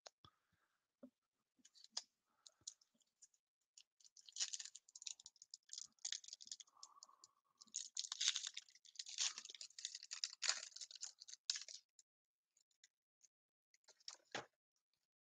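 Foil trading card pack crinkling and tearing as it is opened by hand, a faint crackly rustle lasting several seconds, then two short taps near the end as the cards come out.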